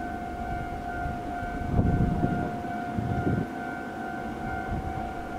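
A steady two-pitched electronic warning tone, with two short low rumbles about two and three seconds in.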